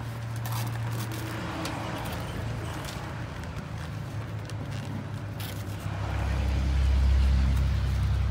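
Rustling and clicks as a vinyl inflation tube is pulled over a blower outlet and strapped on, over a low steady engine-like hum that grows louder about six seconds in.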